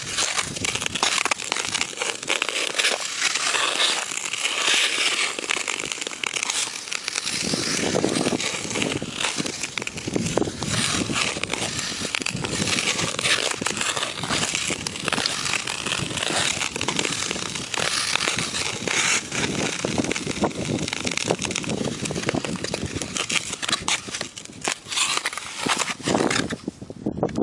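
Hockey skate blades scraping and carving across hard outdoor ice in a continuous crackly rasp of strokes and glides. Near the end it gives way to crunching as the skates move onto snow.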